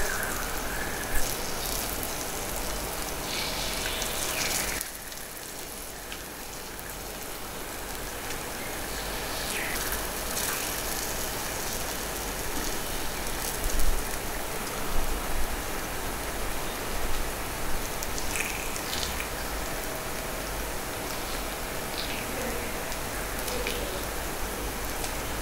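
Takoyaki batter sizzling in the hot Teflon-coated pan of a gas takoyaki machine, a steady frying hiss. Now and then there is a light tap as the bamboo skewers turn the balls in their holes.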